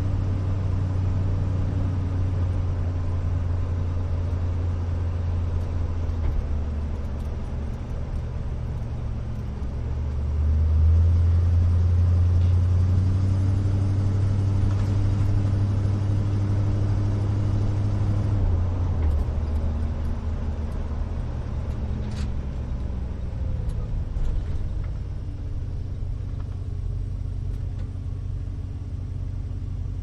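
A 1970 Chevrolet 2500 pickup driving, heard from inside the cab: a steady low engine drone over tyre and road noise. From about ten seconds in the engine pulls harder and louder, then eases off a little before twenty seconds, with a faint click or two after that.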